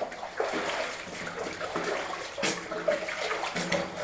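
Footsteps splashing through shallow water on the floor of an old mine tunnel, a string of uneven steps.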